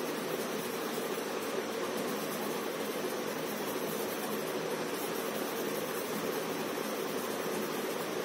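Steady, even background hiss.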